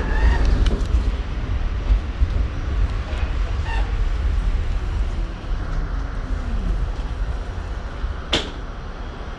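R68 subway car slowing: a heavy low rumble with a whine that falls in pitch and dies away, then a single sharp click about eight seconds in.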